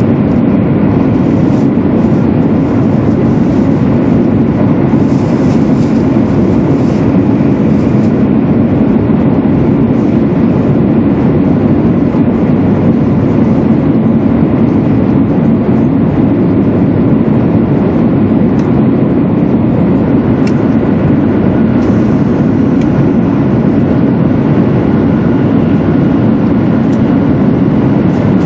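Steady running noise inside a passenger car of a 200 series Shinkansen travelling between stations, a constant low-pitched din with faint steady tones above it.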